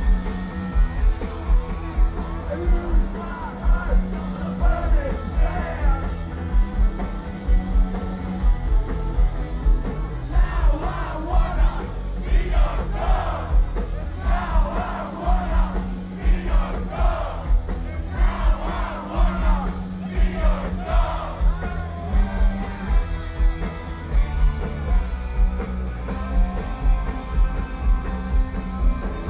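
Live rock band playing on a steady beat over a loud PA, with drums, bass and guitars, and a male singer's vocals mostly from about ten seconds in to about twenty seconds in. Crowd noise mixes in.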